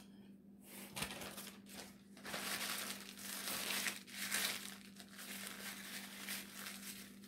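A paper napkin being crumpled and rubbed between the hands, crinkling irregularly with several louder swells.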